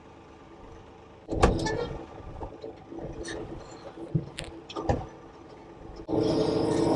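A compact tractor's engine is running at low speed, with a loud clank about a second and a half in and a few lighter knocks after it. Near the end the engine suddenly gets much louder as it is throttled up.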